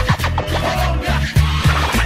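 Background hip hop music with a steady drum beat and bass line, and record scratching over it.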